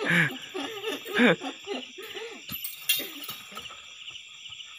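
Oil palm fruit bunches being pitched up onto a cargo truck with spiked poles, with a few sudden knocks, the loudest about a second in. Men's low voices come in and out, over a steady chirping of crickets.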